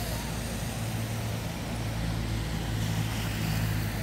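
A motor vehicle engine running steadily, a low hum over a wash of road noise, swelling slightly near the end.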